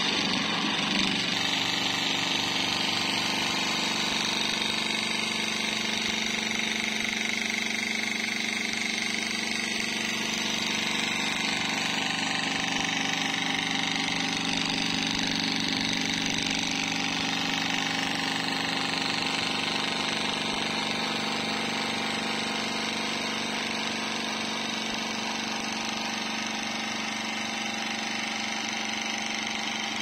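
Small electric fan motor running at speed, spinning a metal ball on its shaft against a cable-wound coil: a steady mechanical hum made of several tones.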